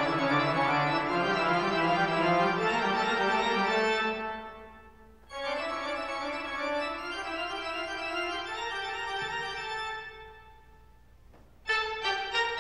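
Background music of slow, sustained keyboard chords, organ-like in tone. The music fades away twice, about four seconds in and again around ten seconds. It comes back each time, with crisper note attacks near the end.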